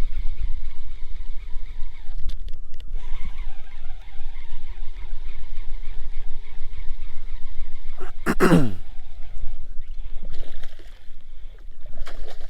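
Steady low rumble of wind buffeting the microphone, with a brief sound that falls steeply in pitch about eight seconds in.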